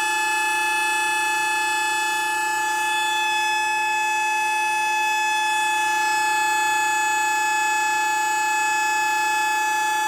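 Hydraulic system running its retract cycle, its pump giving a steady, even whine made of several fixed pitches that hold unchanged throughout.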